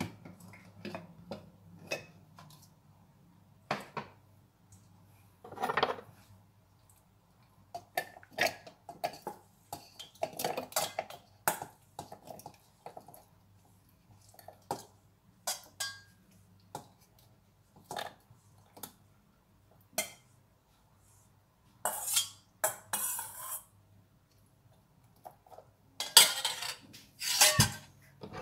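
Kitchen clatter as raw chicken and shrimp are tipped from a stainless steel bowl into a plastic food-chopper bowl: scattered knocks and clinks of the metal bowl and container, with longer, louder clattering bursts near the end.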